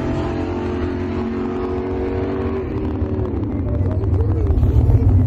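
A car engine running at steady revs, its pitch dropping about three seconds in, then a deeper rumble growing louder toward the end.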